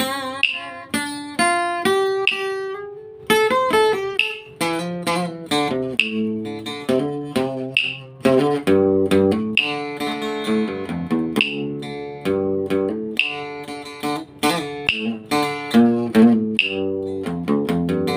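Acoustic guitar played solo in the Vietnamese cải lương style: a plucked melody of single notes and chords, some notes bent so that they waver in pitch.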